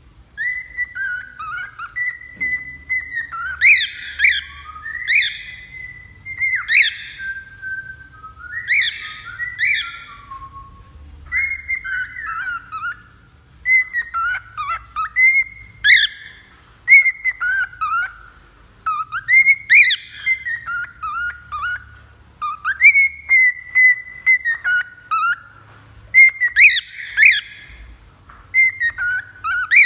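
Cockatiel singing: a string of whistled notes that glide up and down, broken by sharp rising chirps, starting about half a second in.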